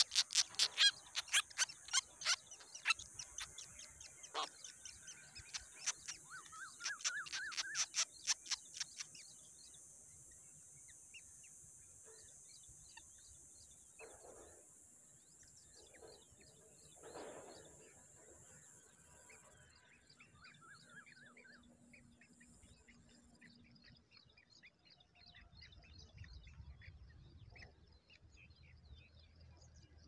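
Rufous treepies at the nest: a rapid run of sharp clicking calls for the first nine seconds or so, loudest at the start, over a steady high hiss that fades out about twenty seconds in, then only scattered faint chirps.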